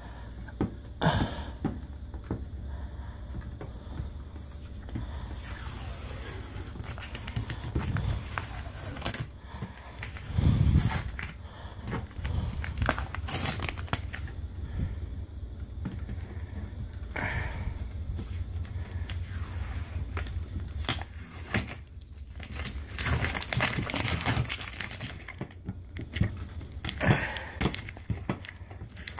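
An adhesive product label being peeled off a steel cabinet door by hand, tearing and crinkling in irregular bursts as it comes away and is crumpled up. There is a dull thump about ten seconds in.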